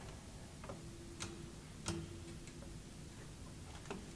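Several light, irregular clicks of soldering tweezers' metal tips against a surface-mount electrolytic capacitor and the circuit board as they grip and shift. The loudest click comes about two seconds in.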